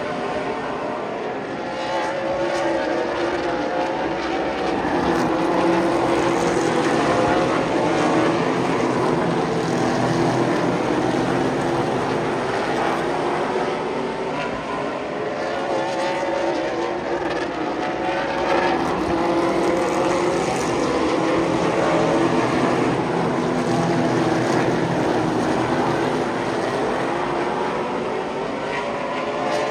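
Super Late Model stock cars' V8 engines racing around an oval track, several engine notes rising and falling in pitch without a break.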